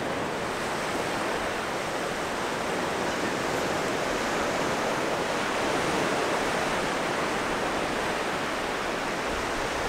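Ocean surf washing onto the beach: a steady, even rushing.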